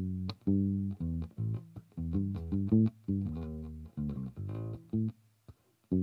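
1980 Yamaha PB-600 Pulser Bass electric bass played as a line of plucked notes, mostly short, with one longer held note about halfway and a brief break near the end.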